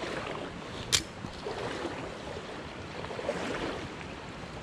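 Shallow stream running over a rocky riffle, a steady rushing hiss, with one sharp click about a second in.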